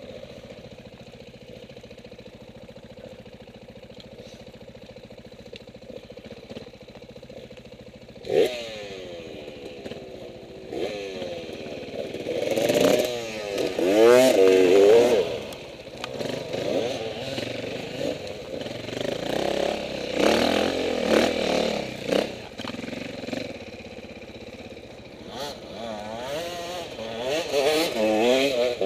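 Dirt bike engine running quietly for several seconds, then revving up and down again and again as it rides, with a sharp knock about eight seconds in and clattering over the rough ground; it is loudest near the middle and again near the end.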